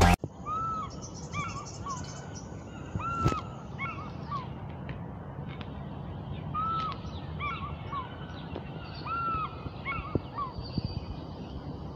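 An eagle calling: several phrases of high, arched whistled notes, each a longer note followed by two or three quick shorter ones, over a steady low hiss, with a few brief clicks.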